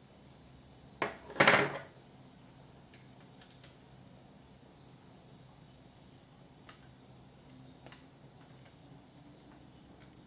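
A sharp click followed straight after by a louder knock of hard objects, then a few faint ticks, over a faint steady high-pitched tone.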